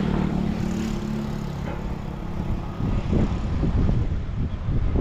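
An engine running steadily with a low hum that fades out about halfway through, followed by wind buffeting the microphone in uneven gusts.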